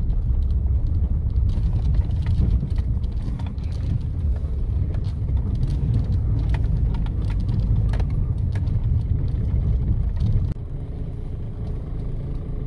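A car driving off-road on a sandy desert track, heard from inside the cabin: a steady low rumble of engine and tyres, with scattered sharp knocks and rattles as it goes over bumps. It gets somewhat quieter about ten and a half seconds in.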